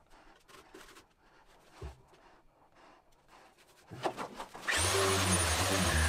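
Festool TPE-RS 100 electric carpet scraper paused: faint scraping and handling noises with a single knock about two seconds in. Near the end the scraper starts abruptly and runs loudly with a high whine.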